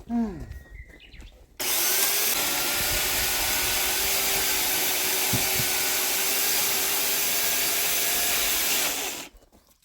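Electric chainsaw starting abruptly about a second and a half in, running steadily with a constant motor whine as it cuts firewood, then stopping near the end.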